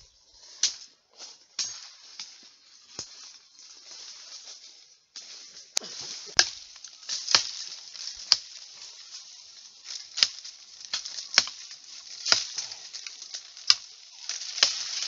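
Irregular crackling and snapping of leaves and twigs as someone pushes through dense forest undergrowth, over a light hiss, growing busier after a brief drop-out about five seconds in.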